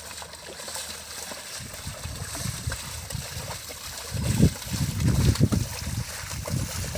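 Muddy water sloshing and trickling as bulls drag a plough-leveller through a flooded paddy field, with irregular low rumbling bursts that grow loudest about two-thirds of the way in.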